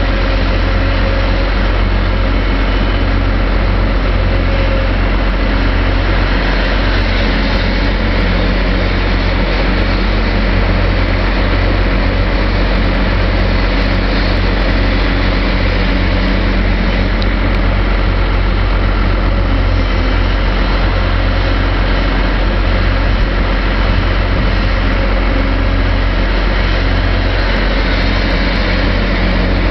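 Volvo 460CL excavator's diesel engine running steadily under load as it digs, swings and loads dirt into a dump truck.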